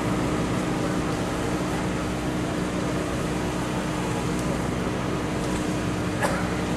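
A steady low hum over a constant rushing noise, with one short click about six seconds in.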